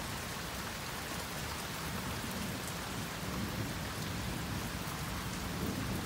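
Rain falling steadily, with low thunder rumbling beneath it during a lightning storm.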